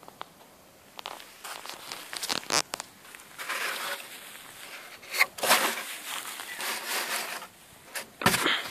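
Irregular rustling and crackling handling noise close to the microphone among dry grass, with a few sharp clicks and the loudest burst near the end.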